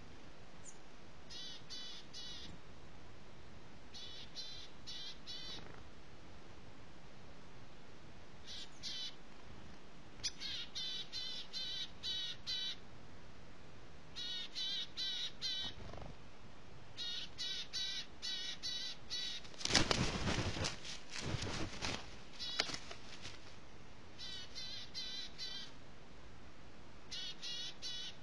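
A crow-family bird calls in repeated runs of rapid, harsh notes, a handful of notes per run, with short pauses between runs. About two-thirds of the way through comes a louder burst of rustling noise lasting about two seconds.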